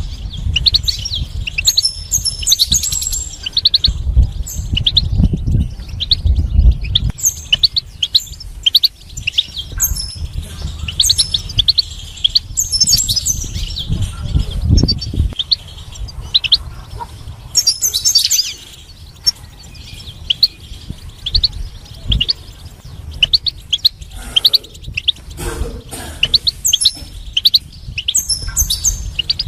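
European goldfinch singing: fast twittering runs of short high notes with brief pauses, thinning out for a few seconds past the middle. A low rumble sits underneath at times.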